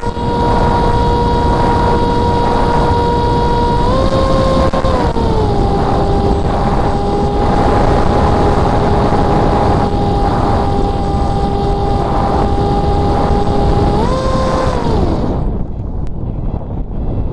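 Electric motor and propeller of an FPV flying wing in flight, a steady whine heard through heavy wind rush on the on-board camera's microphone. The whine steps up and back down a few seconds in, rises again near the end, then glides down and cuts out as the throttle is closed, leaving only wind noise.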